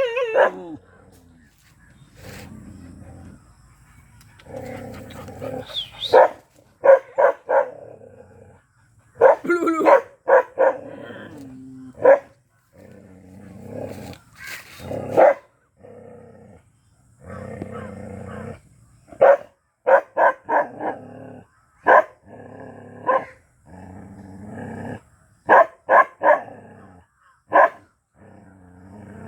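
Black Bhotiya (Himalayan sheepdog) barking aggressively in short clusters of sharp barks, with low growling between the bursts.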